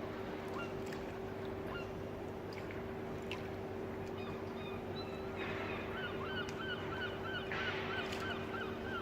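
A bird calling in a quick, even run of short calls, about three a second, over the last three seconds or so, with scattered single calls before. Under it runs a steady low machinery hum, like a berthed ship's engine.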